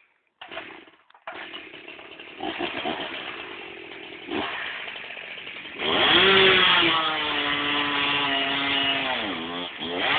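Chainsaw running low at first, then revved hard about six seconds in and held at high speed, its pitch sagging briefly near the end as the chain bogs in the cut.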